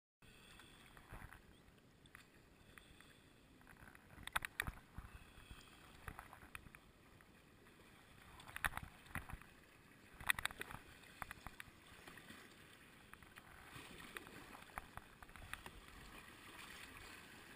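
Kayak paddling in shallow river water: paddle blades dipping and splashing at irregular intervals of a second or two over a faint steady wash of water.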